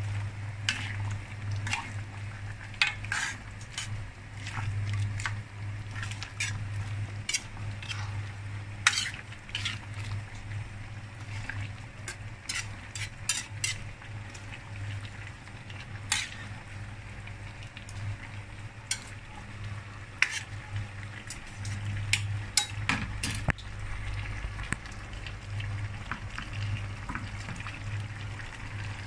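A ladle stirring braised ribs and vegetables in a metal wok, with irregular clinks and scrapes against the pan, over the sizzle of the food and a steady low hum.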